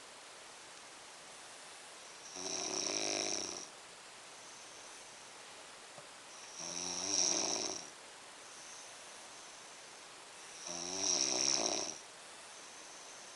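Snoring: three loud snores about four seconds apart, each a little over a second long, with a fainter breath sound in each gap between them.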